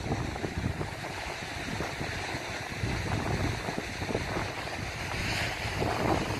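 Wind buffeting the microphone in uneven gusts, over the steady wash of surf breaking on the shore below; the hiss swells briefly about five seconds in.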